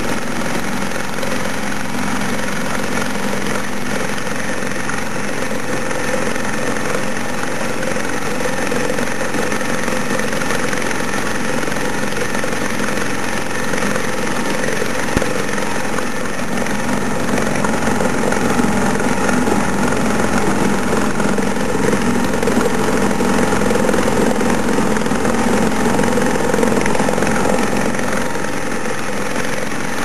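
British Seagull two-stroke outboard engine running steadily in a test tank, its propeller churning the water. It runs a little louder in the second half.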